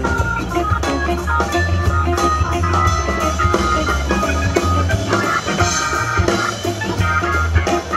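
Live band playing: electric guitar and electric keyboard over a heavy bass line and drum kit.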